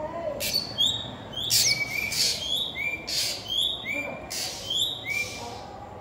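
Songbird calling over and over: short clear whistled notes that step down in pitch, about three to a phrase, with short scratchy notes between them.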